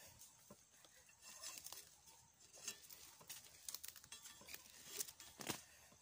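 Faint footsteps rustling through leaf litter on a forest floor: scattered soft rustles and ticks, with a sharper click about five and a half seconds in.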